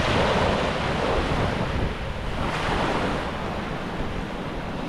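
Small waves washing up and drawing back over a sandy beach, swelling about a second in and again about halfway through, with wind buffeting the microphone.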